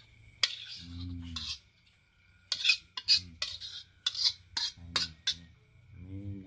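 A metal spatula scraping and clinking against a wok in a series of sharp scrapes, thickest between about two and a half and five seconds in, as the last of the noodles are scraped out.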